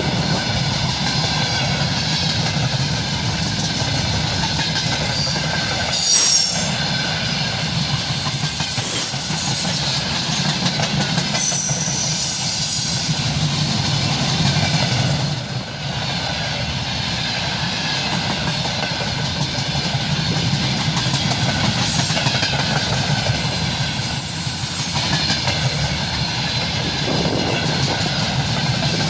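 Freight train behind a 3ES5K electric locomotive rolling past, its wheels running steadily on the rails, with a few brief high-pitched wheel squeals now and then.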